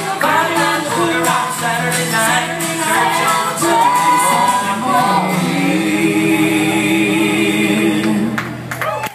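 A mixed vocal group of two men and two women singing in close harmony into microphones, the end of a song. About five seconds in they settle on a final chord and hold it, and it stops shortly before the end.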